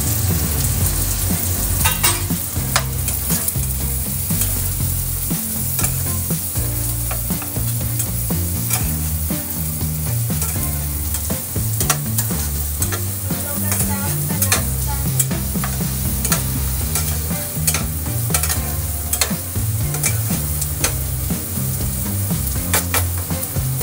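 Chopped onions and green chillies sizzling in hot oil in a nonstick kadai while a spatula stirs them, with frequent clicks and scrapes of the spatula against the pan.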